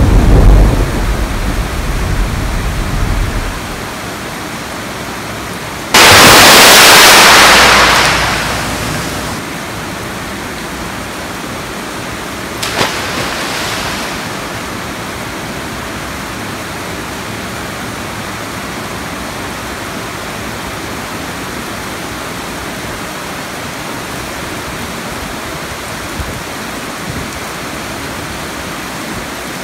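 Steady rain falling in a thunderstorm. A low rumble of thunder dies away in the first few seconds, a sudden loud thunderclap crashes about six seconds in and fades over the next few seconds, and a smaller crack comes near the middle.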